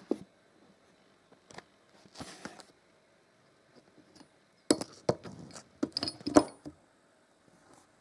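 Small loose metal parts of a Frister & Rossmann sewing machine clinking and knocking as they are handled and set down on a hard work surface: a few single light knocks in the first three seconds, then a quick cluster of clinks and knocks about five to seven seconds in.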